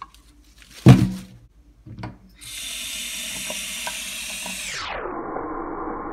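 Husk-on ears of corn set down in a stainless steel kitchen sink with a loud thud about a second in and a softer knock a second later, then a faucet runs steadily, water splashing over the corn in the sink.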